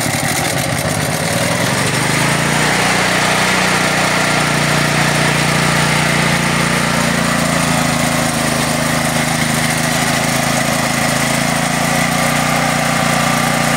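Firman H07552 generator's 439cc single-cylinder OHV engine running on natural gas just after an electric start, wavering briefly and settling into a steady run about two seconds in.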